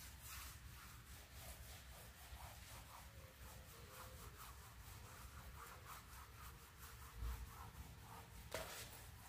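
Faint rhythmic rubbing strokes, a few a second, as pool tiles and grout lines are scrubbed clean. A single sharper knock comes near the end.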